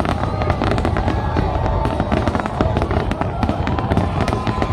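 Fireworks display going off densely: rapid overlapping bangs and crackles over a continuous low rumble.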